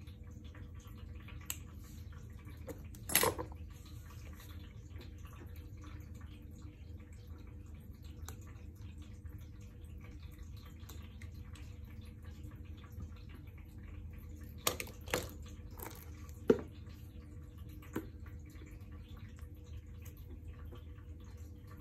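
Hands handling a 4S lithium-ion cell pack and its BMS board: a handful of short, sharp clicks and knocks, the loudest about three seconds in and about sixteen seconds in, over a steady low background hum.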